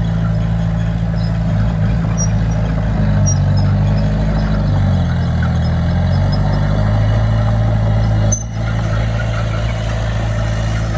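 Heavy construction-machine diesel engine running steadily under load. Its pitch dips and comes back up in the middle, and the level drops briefly about eight seconds in.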